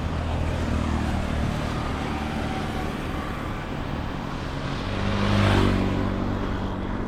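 Roadside traffic: a steady hum of vehicle engines and tyres, with one motor vehicle passing close by, growing louder and then fading about five to six seconds in.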